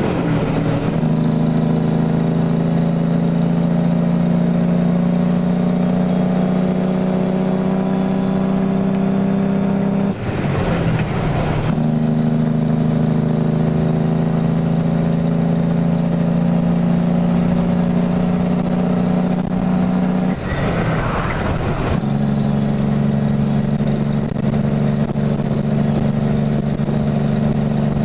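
Truck's engine compression brake (Jake brake) running steadily on a downhill descent, heard from inside the cab. It breaks off briefly twice, about ten and twenty seconds in, then comes back.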